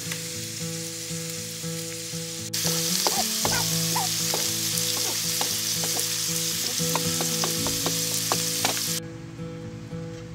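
Food frying in a pan, a dense sizzle with occasional clicks and scrapes of stirring. The sizzle gets louder about two and a half seconds in and drops away sharply near the end.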